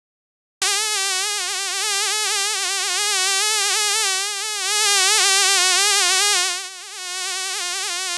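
A fly buzzing in flight: a continuous buzz that starts about half a second in, its pitch wavering constantly and its loudness swelling and sagging, with a brief dip near the end.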